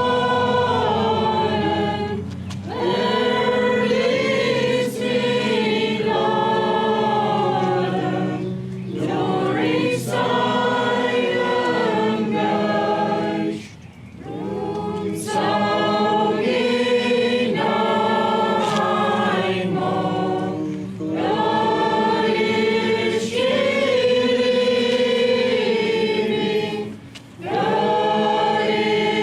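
A choir singing in long sustained phrases, with brief pauses between phrases.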